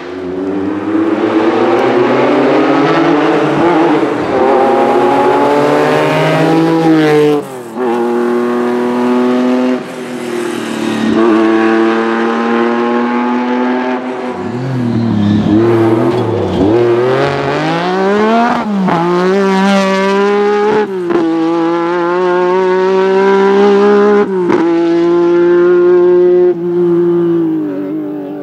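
Lancia Stratos rally car engine at full throttle, its pitch climbing hard and dropping sharply at each upshift. About halfway through it drops low and wavers through downshifts and throttle blips, then climbs through the gears again before fading near the end.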